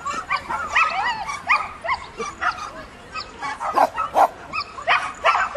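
Shetland sheepdogs barking, a rapid run of short, high barks that thins briefly around the middle.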